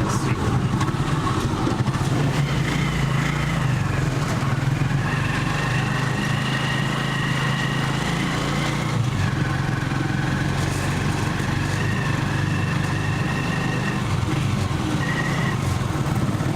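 Vehicle engine running steadily at an even pace, with a faint high whine over it through most of the stretch.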